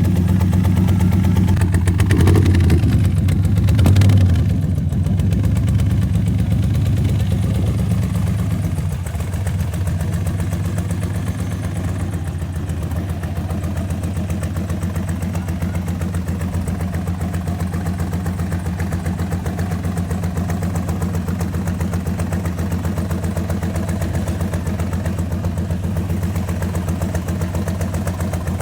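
1965 Corvette V8 engine running, with a couple of brief surges in revs in the first few seconds. It then settles to a steady idle.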